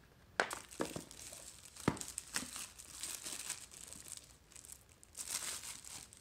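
Clear plastic shrink wrap being torn open and peeled off a small cardboard box, crinkling. A few sharp cracks come in the first two seconds, and the crinkling is loudest about five seconds in.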